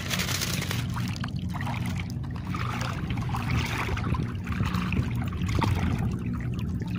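Shallow water sloshing and trickling in uneven swells, over a steady low hum.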